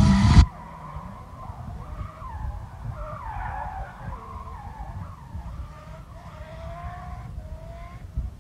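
Distant drift cars' tyres squealing, a thin wavering tone that slides up and down in pitch, over a low rumble. A brief loud rush of noise opens the first half-second.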